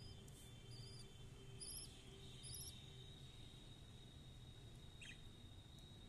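Faint budgerigar chirps: four short, high chirps about a second apart in the first three seconds, heard at the nest box where the hen is feeding her naked chicks.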